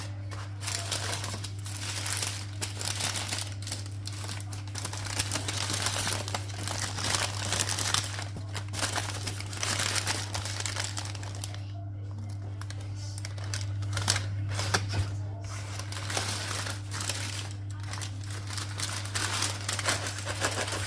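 Paper takeaway packaging crinkling and rustling in irregular spells as it is handled, over a steady low hum.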